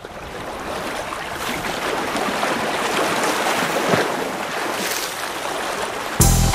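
Ocean waves washing onto a sandy beach, a steady rushing surf that fades in over the first couple of seconds. Music with a heavy bass comes in sharply near the end.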